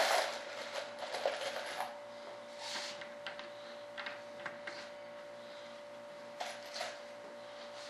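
Small clicks and light scraping of hands handling the edge of a fiberglass wing mold, in scattered bursts, busiest in the first two seconds, with a faint steady hum underneath.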